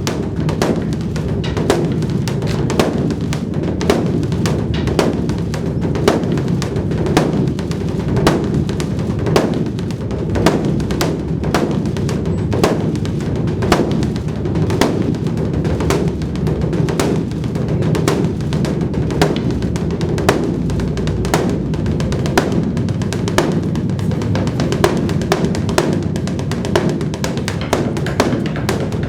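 Drums beaten in a fast, dense, unbroken rhythm, with a steady low hum beneath the strikes.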